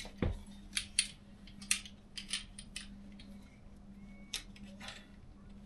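Irregular light metallic clicks and clinks of small tools and hardware being handled, with a soft knock just after the start, over a faint steady hum.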